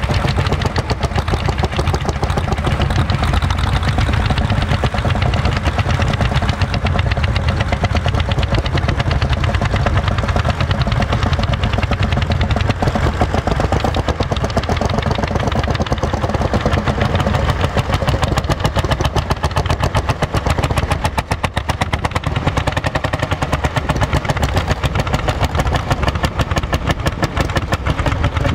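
Single-cylinder two-stroke hot-bulb engines of Lanz Bulldog tractors running under load while working a field, a rapid, even knocking exhaust beat.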